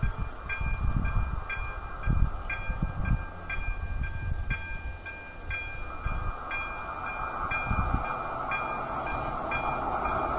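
Electronic warning bell (Elektronický 02) of an AŽD 97 level crossing dinging steadily about twice a second, over irregular low rumbles. From about six seconds in, the noise of the approaching train rises and grows louder toward the end.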